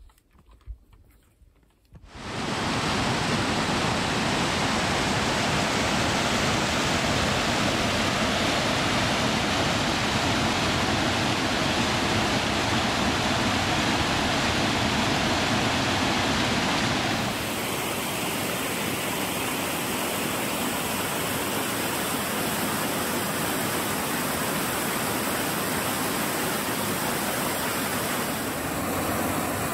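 Rushing water pouring steadily down a cascade. It cuts in suddenly about two seconds in and shifts slightly in tone just past halfway.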